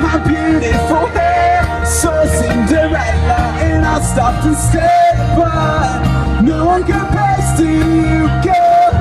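Live pop-rock band playing, with a bending melodic line over bass and drums; the bass and drums drop out for a moment about five seconds in and again near the end.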